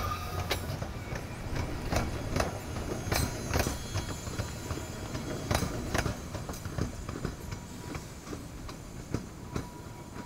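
Electric commuter train passing close by, its wheels clacking irregularly over the rail joints over a low rumble, with the sound easing as it moves away.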